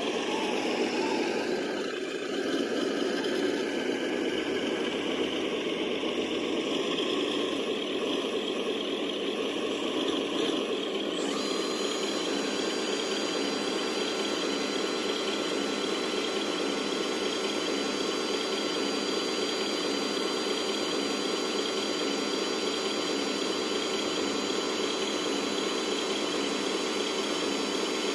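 Diesel engine of a heavy earthmoving machine running steadily. A thin, high, steady whine sets in about eleven seconds in.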